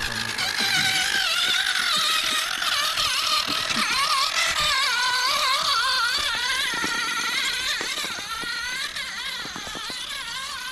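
An RC crawler's electric motor and gearbox whining, the pitch rising and falling irregularly as the throttle is worked.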